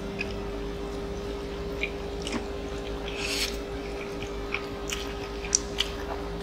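Close-miked eating sounds: chewing and mouth clicks, with a short slurp of glass noodles about three seconds in, over a steady low hum.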